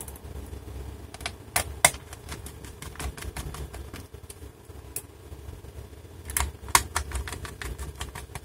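Small screwdriver and screws clicking and tapping against a laptop's metal palm-rest frame as screws are driven in, in two bunches of sharp clicks, over a steady low hum.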